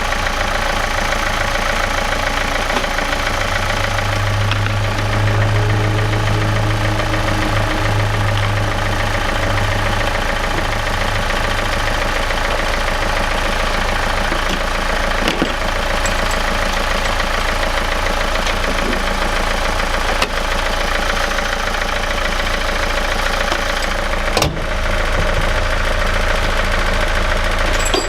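Renault Clio Mk3 diesel engine idling steadily after a battery replacement, running normally, with one sharp click late on.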